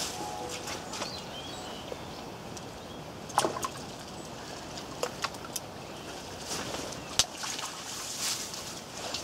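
Water sloshing as a hooked bream is played at the surface and drawn into a landing net, with a few sudden sharp splashes, the loudest about three and a half seconds in.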